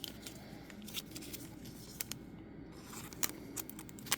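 Faint, scattered clicks and scrapes of trading cards being handled and flipped through, a few light ticks about a second apart.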